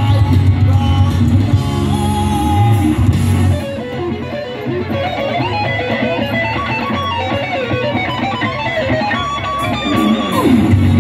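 Live rock band with an electric guitar playing a lead solo; about a third of the way in the low end falls away, leaving the guitar's quick lines with bends nearly alone, and the full band comes back in near the end.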